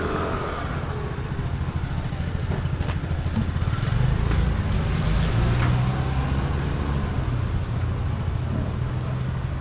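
Low, steady rumble of motor-vehicle engines, with motor scooters riding past. The rumble swells a little around the middle.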